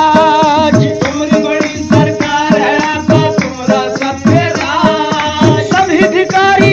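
Music from a devotional song: a steady hand-drum and shaker beat under a wavering melody line.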